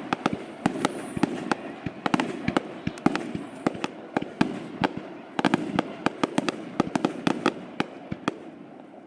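Aerial fireworks bursting in a rapid, irregular run of sharp cracks and pops, several a second, over a steady rumble of the display.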